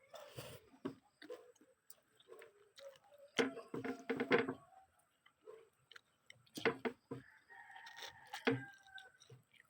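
A rooster crowing twice: one call a few seconds in and a longer, steadier one near the end, with small clicks in between.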